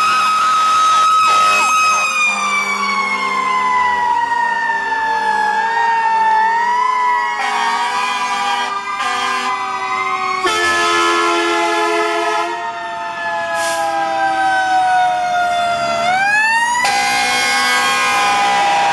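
Fire apparatus sirens. A mechanical siren of the Federal Q kind is held at a high pitch, then winds down slowly over many seconds and is wound back up with a sharp rise near the end. Other electronic siren tones and several loud horn blasts sound over it.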